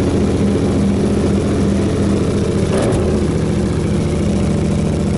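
Yamaha MT-07's parallel-twin engine idling steadily through a newly fitted handmade exhaust, with a single short click about halfway through.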